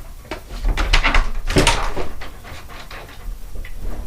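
Front door being opened: a string of clicks and knocks from the handle and latch, the loudest about one and a half seconds in, then a few lighter clicks.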